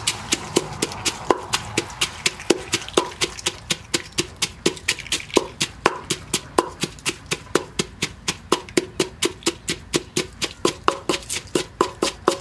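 Wooden pestle pounding in a clay mortar, crushing red chilies and garlic with salt for papaya salad: steady, even knocks at about four strokes a second.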